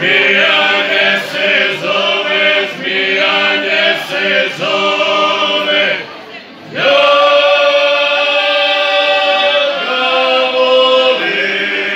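Male folk vocal group singing unaccompanied, several voices holding long notes together. They break off briefly about halfway, then come back in on a rising slide into a long held chord.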